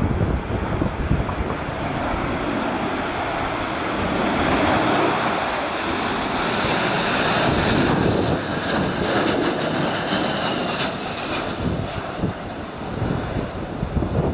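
Boeing 737-800's CFM56 turbofan engines passing close during landing, a broad jet rush that swells with a high engine whine near the middle. Wind gusts buffet the microphone at the start and end.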